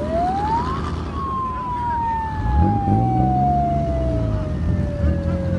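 A siren-like wail rises quickly, then slowly winds down over about five seconds. Under it, 4x4 engines run, and one revs briefly about two and a half seconds in.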